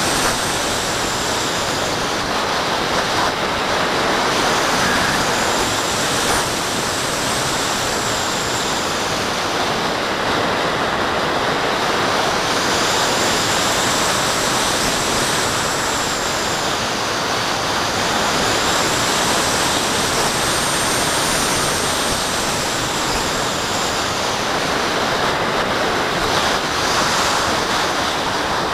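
Airflow rushing over a wing-mounted action camera on a Graupner Cherry II electric glider in flight: a steady, loud hiss whose upper part swells and fades slowly every several seconds, with no motor tone.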